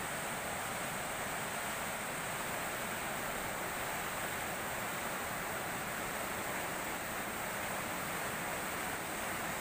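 Fast, swollen river water rushing and churning over a concrete weir: a steady white-water noise that does not change.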